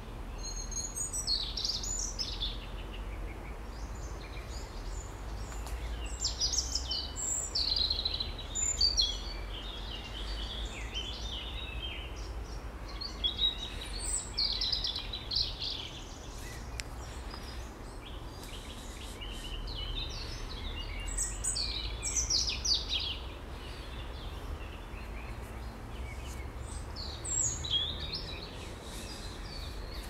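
Songbirds singing: quick high phrases of a second or two, repeated every few seconds, over a steady low background rumble.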